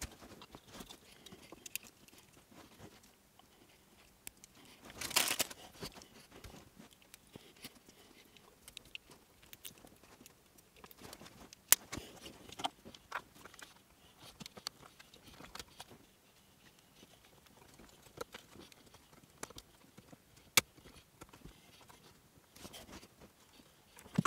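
Wiring harness and plastic connectors being handled under a car dashboard: scattered clicks and light rustling of wires, with a louder rustle about five seconds in and sharp clicks near twelve and twenty seconds.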